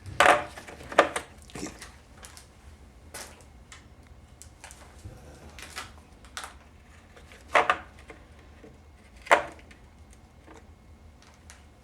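Hand tools and metal parts clicking and knocking together during work on a 4L60E transmission: a string of sharp, separate knocks at irregular intervals, the loudest two in the first second and two more after about seven and a half and nine seconds.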